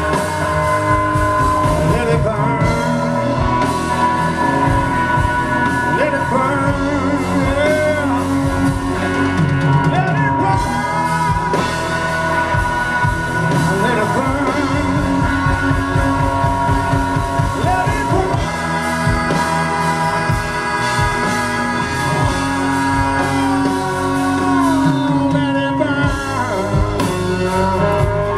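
Live blues-rock band playing: electric guitar and bass guitar with a male lead vocal sung into the microphone.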